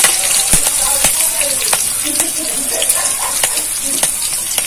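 Tempering spices (fenugreek seeds, dried red chillies, bay leaf and green chillies, with sugar) sizzling in hot oil in a kadai. It makes a steady hiss with scattered sharp pops and crackles.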